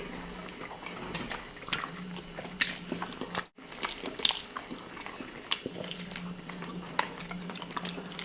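Close-miked eating sounds: chewing, lip smacks and scattered small wet clicks as pork ribs in a creamy stew are eaten, over a faint steady hum. The sound drops out completely for a moment a little past three seconds in.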